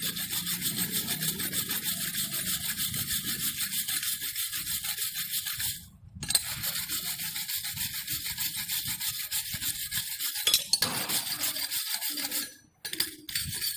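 Steel wire brush scrubbed rapidly back and forth over a fresh arc-welded butt joint, cleaning spatter off the weld bead after the slag has been chipped away. It breaks off briefly about six seconds in, and a sharp knock comes near the end.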